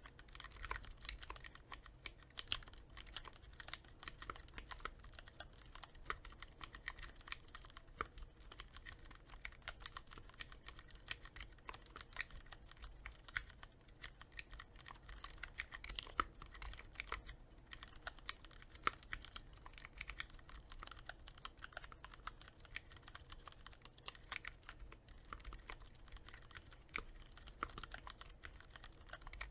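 Keys being typed on continuously on a Cherry MX Board 3.0S with Cherry MX Red linear switches, quick-lubed with Krytox 105: a fast, steady stream of keystroke clacks, with a brief pause about 17 seconds in.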